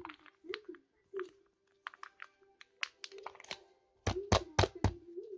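Milky slime being handled and squeezed: a run of sharp, wet clicks and pops, then four heavy thunks in quick succession about four seconds in.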